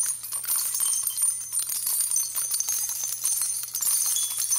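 Dense, high-pitched jingling of small bells, a continuous shimmer of quick tinkles, over a faint steady low hum.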